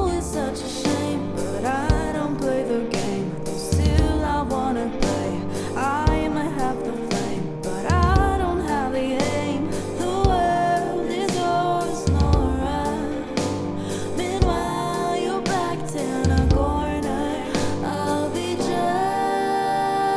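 Pop song: a sung lead vocal melody over a band accompaniment with a steady beat, a strong low hit about every two seconds.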